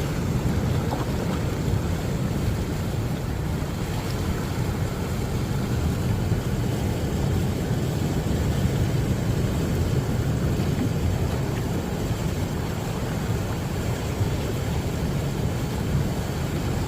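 Floodwater of a flash flood rushing down a wadi: a steady, loud rush with a deep low rumble.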